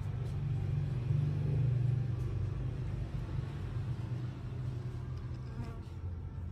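A fly buzzing close by: a low drone that swells from about a second in and eases off after about two seconds.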